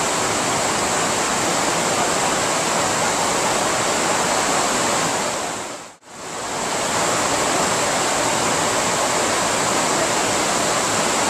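Vltava River water rushing loudly and steadily over a low drop. The sound fades out and back in about six seconds in.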